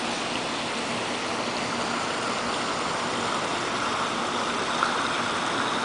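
Water splashing steadily into a swimming pool, an even rushing that grows a little louder and brighter about two seconds in.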